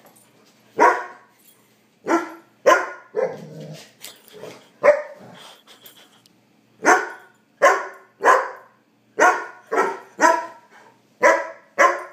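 Black Labrador puppy barking, about a dozen single barks, spaced out at first and then coming roughly every half second after a short pause in the middle. It is demand barking for dinner.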